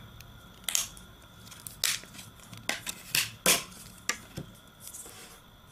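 Back cover of a UMi X2 smartphone being pried and snapped off by hand: a series of short sharp clicks and scrapes, about eight over several seconds.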